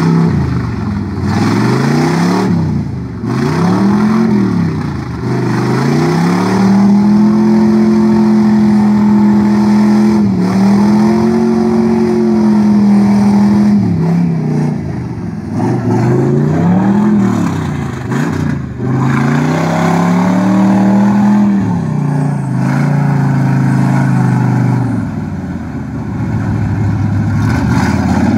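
Small-block Chevy V8 in a lifted mud truck revved hard again and again, the pitch climbing and falling and held high for several seconds at a time as the cut bogger tyres churn through deep mud and water.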